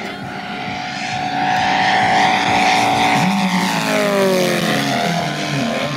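Moki 250 radial engine of a large-scale RC Fw 190 warbird running at high power as the model flies past. It grows louder as it approaches, then its pitch drops about three and a half to five seconds in as it goes by.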